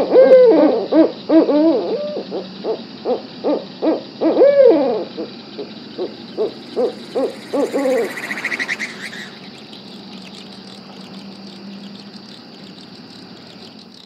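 Night-time animal calls: a rapid series of short, rising-and-falling calls, two or three a second with several overlapping, loudest in the first five seconds, dying away about eight seconds in. A brief raspy buzz follows, then a steady faint hiss.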